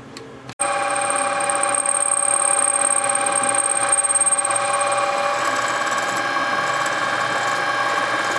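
Drill press running steadily with a whine, drilling a hole through a thin aluminium shim clamped in its vise; the sound comes in abruptly about half a second in.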